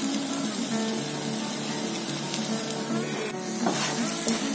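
Background music over the steady hiss of batter-dipped bread shallow-frying in oil in a nonstick pan. About three and a half seconds in, a spatula scrapes across the pan as the slice is lifted.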